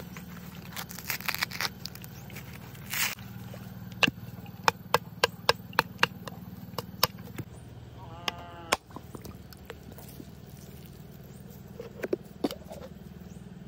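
Machete blade striking a husked coconut to crack its shell: a run of about eight sharp knocks over some three seconds, then a few more near the end.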